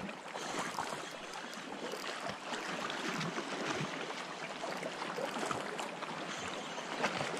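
Shallow sea water lapping against rocks: a steady hiss of small waves with faint scattered splashes.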